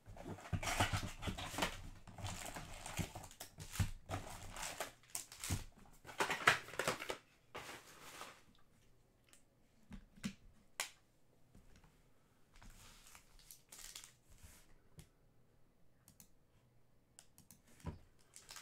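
Cardboard hobby box being opened and its foil-wrapped trading card packs handled, crinkling and rustling in bursts over the first eight seconds, then scattered light taps and crinkles.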